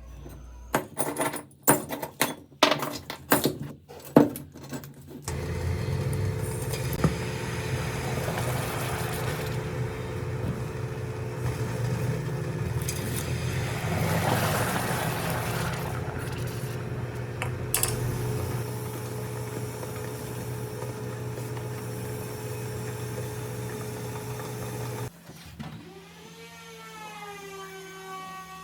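A few sharp metallic knocks and clicks, then a small electric power tool running steadily with a constant hum. Near the end it drops to a lower, quieter pitch.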